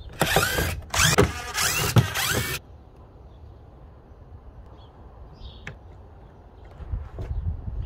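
Cordless power driver whirring in two bursts, a short one and then a longer one of about a second and a half, its pitch sliding up and down as it backs out the screws of a console mount. After that come only a few faint clicks of a hand screwdriver.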